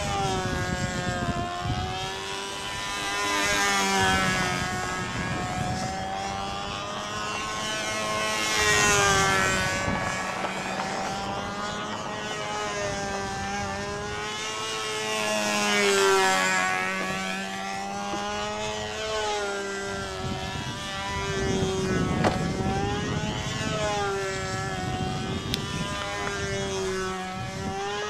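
Control-line model airplane's motor and propeller running steadily at full speed. The pitch rises and falls and the sound swells every several seconds as the plane circles past.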